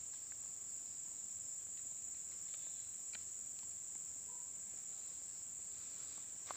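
Steady, high-pitched drone of insects, with a few faint clicks.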